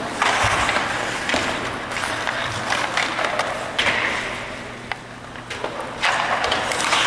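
Hockey skate blades carving and scraping on rink ice, swelling into loud scrapes several times, with scattered sharp clacks of sticks and pucks.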